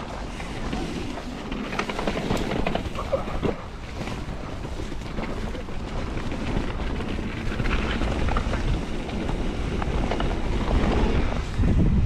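Mountain bike being ridden over a dirt trail: wind buffeting the microphone and tyres rolling on the ground, with scattered clicks and rattles from the bike. The rumble grows louder toward the end.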